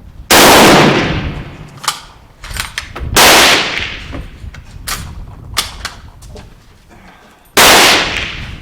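Three rifle shots from a Carcano M1891 bolt-action carbine in 6.5×52mm, a few seconds apart, each ringing out with a long echo. Smaller sharp clicks come between the shots.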